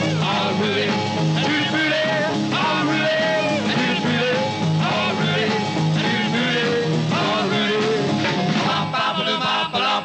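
A rock and roll band playing a 1950s-style number, with a lead vocal over a steady driving bass line. About nine seconds in it breaks into a few short stop-time hits as the song ends.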